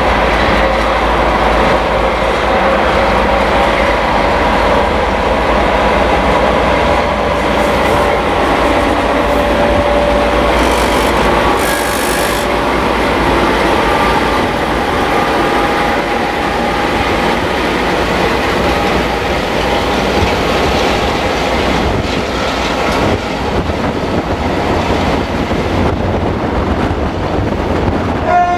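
Class 232 diesel locomotive hauling a 1400-tonne fertiliser train passes close by, its engine running. Loaded hopper wagons follow, rolling past with a steady rumble and a drawn-out, slightly wavering wheel squeal.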